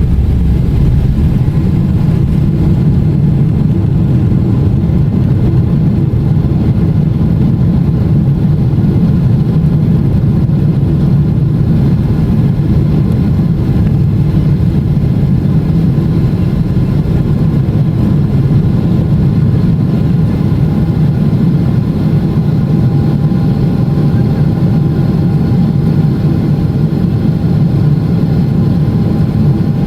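Boeing 777-300ER's GE90-115B turbofan engines heard inside the cabin, running at high thrust: a loud, steady low roar with faint steady tones above it.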